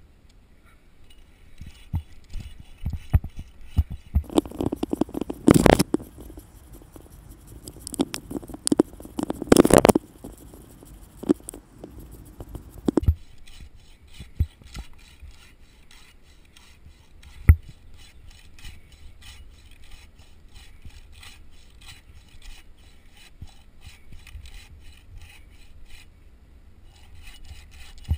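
Hand pruning saw cutting into a dead, dry pine limb with back-and-forth rasping strokes. The strokes are loud and rough for the first several seconds, then settle into a quieter, even rhythm.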